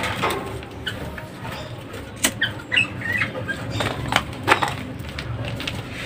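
Small caged songbirds giving short, high squeaky chirps now and then, over scattered sharp clicks and handling noise.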